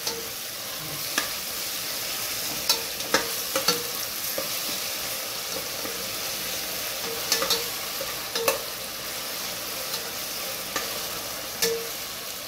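Sliced onions, tomatoes and curry leaves sizzling in oil in a stainless steel pot, sautéing until soft, as a metal spoon stirs them. The spoon clinks sharply against the pot at irregular moments, some clinks leaving a short metallic ring.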